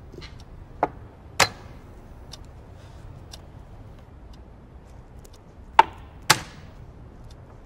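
Two chess moves: each time a piece clacks down on the board and, about half a second later, the chess clock's button is pressed with a louder clack, once about a second in and again near six seconds in. A faint tick sounds about once a second in between.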